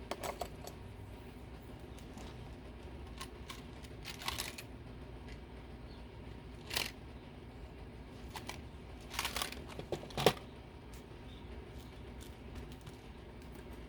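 Paper and craft supplies being handled and rustled in a few short crinkling bursts, with a sharp tap about ten seconds in.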